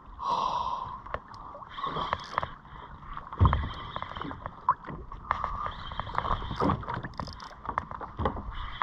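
Water splashing and gurgling against a plastic fishing kayak's hull, with many small clicks and a louder knock about three and a half seconds in.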